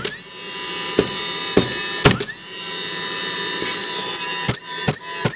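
Cordless nailer fastening a new window's nailing flange: sharp nail shots with the tool's motor whirring between them, its whine rising again after a shot. About four shots come in the first two seconds, then a steady whir, then three quick shots near the end.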